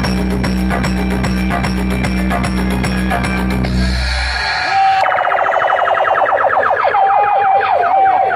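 Loud DJ dance music played through a large stacked speaker system: a bass-heavy drum beat that drops out about four seconds in. A fast, siren-like electronic build-up with a held high tone follows.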